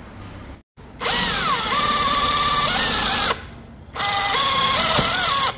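Handheld power drill run in two bursts of about two seconds and a second and a half, its motor whine sliding up and down in pitch as the speed changes.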